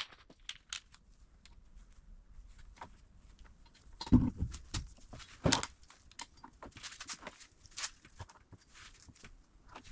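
Scattered clicks and knocks of metal parts and tools being handled during hub assembly work on a suspension knuckle, with two louder knocks about four and five and a half seconds in.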